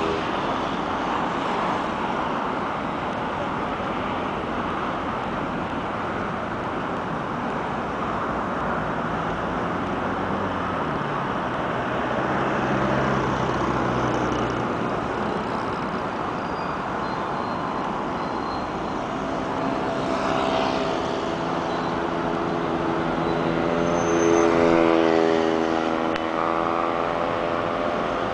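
Steady rumble of vehicle traffic, with a motor's hum coming and going and growing loudest near the end.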